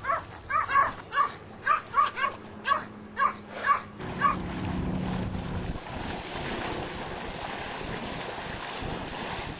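Pomeranian yapping: about eleven short, high-pitched barks, roughly three a second, stopping a little over four seconds in. A steady rushing noise runs on after the barking ends.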